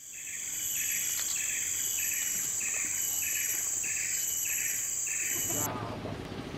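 Tropical insect chorus: a steady shrill buzz under a pulsing chirp that repeats about every three-quarters of a second, nine times. It cuts off suddenly about five and a half seconds in, and a low hum takes over.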